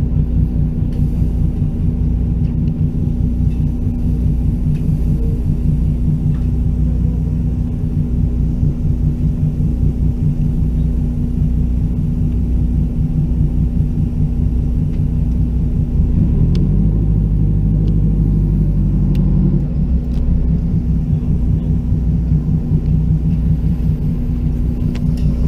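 A boat's engine running steadily: a low, throbbing hum with a fixed whine above it. About sixteen seconds in its pitch shifts and holds for a few seconds, then settles back.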